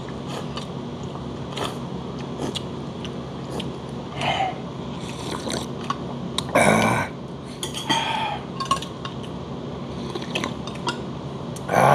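Eating steamed red crab: small clicks and sucking noises from the crab shell and utensils, and a loud slurp of broth from a ladle a little past halfway, followed by a short throaty sound, over a steady low kitchen hum.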